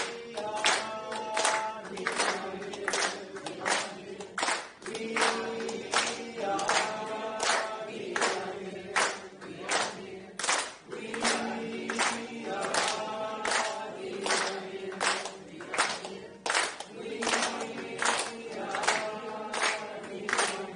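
A group of voices singing a short phrase over and over in unison, kept to a steady beat of hand claps about twice a second.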